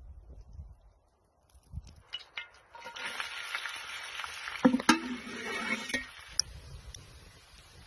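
Chopped onion dropped off a cleaver into hot oil in a cast-iron skillet, sizzling, with a few sharp knocks of the blade against the pan just before five seconds in. The sizzle dies down after about six seconds.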